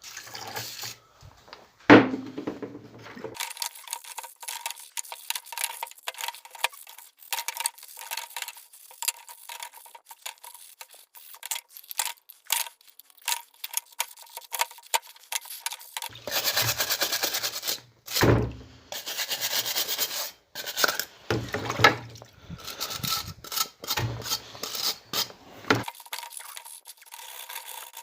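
Hand scraping and rubbing on parts, in short uneven strokes broken by clicks and knocks, with one sharp knock about two seconds in. Longer, louder stretches of scraping come past the middle.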